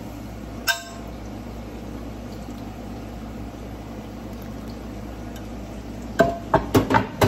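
A wooden spoon and a glass baking dish knocking against a cooking pot over a steady low hum: a single clack about a second in, then a quick run of clicks and knocks near the end.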